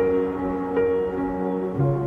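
Soft, slow instrumental background music of sustained chords, with a new note about every three-quarters of a second and the bass line dropping to a new note near the end.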